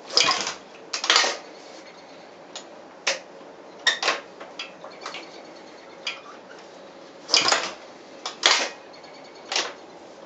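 A freshly rebuilt Honda CB360 parallel twin being kick-started: a string of irregular clattering bursts a second or two apart as the engine turns over and tries to catch, without settling into a steady run.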